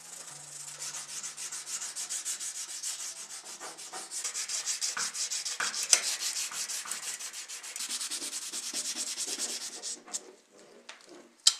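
Sandpaper rubbed back and forth by hand over a bare-metal model car part, a fast, even scraping at about five strokes a second. It stops about ten seconds in, followed by a few light clicks and one sharp click near the end.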